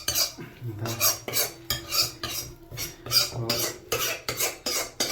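A spoon scraping against a cooking pot as the chickpea curry is stirred and scooped, in quick repeated strokes, about three a second.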